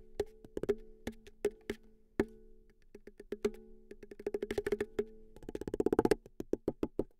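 Ukulele played as a drum, from a sampled "uke drum" patch: a pattern of sharp, woody taps with a ringing tone beneath them. The hits come closer together, build into a fast roll about five and a half seconds in, and end with a few last taps.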